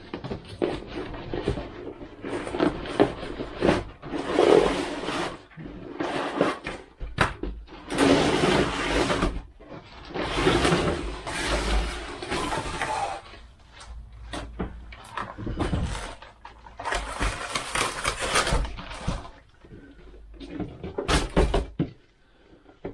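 A telescopic pole in its plastic wrapper being slid out of a cardboard box. Cardboard and plastic scrape and rustle in repeated bursts of a second or so, with dull knocks from handling.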